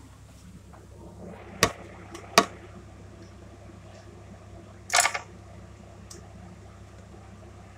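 Two sharp knocks a little under a second apart, then a short clatter about five seconds in, over a steady low hum: the phone being handled and set down on a kitchen counter, and a plastic chopping board being laid out.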